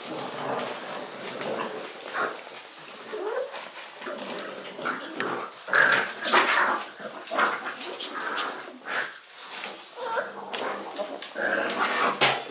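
Six-week-old shar-pei puppies growling at one another in play, in short irregular bursts that are loudest about six seconds in.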